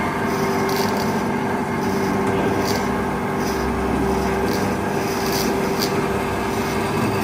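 Marvel Series 8 Mark II vertical band saw running, its blade cutting through a steel angle workpiece: a steady motor hum under a continuous rasping, with light irregular ticks.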